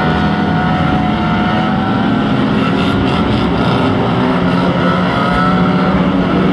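Engines of several small race cars running together as a pack laps the oval, a steady drone whose pitch rises and falls gently as the drivers ease off and accelerate.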